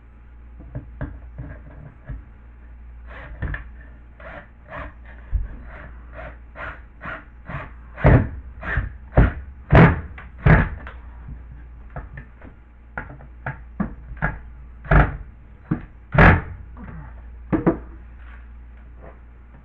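Irregular knocks and taps on drywall as a cut-out piece is handled and fitted back into the wall, about one or two a second. The loudest come in a run just after eight seconds and twice more around fifteen and sixteen seconds.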